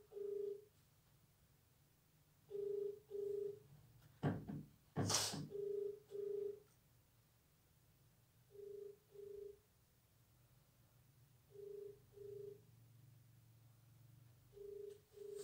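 Mobile phone ringback tone on speaker: a double beep repeated every three seconds, the sign that the called number is ringing and not yet answered. About four to five seconds in, two short loud knocks or rustles.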